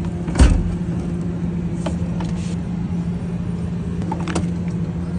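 A steady low mechanical hum, like machinery or an idling engine running in the background, with a sharp thump about half a second in and a lighter click a few seconds later.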